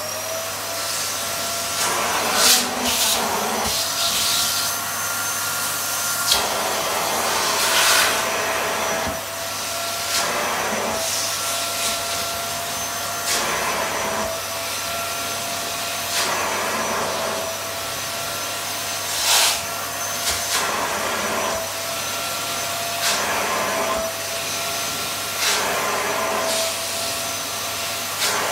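Wertheim 7 Series canister vacuum cleaner running with a steady motor whine while its nozzle is worked over fabric sofa upholstery. Brief surges of rushing air and rubbing come every few seconds as the nozzle strokes the cushions.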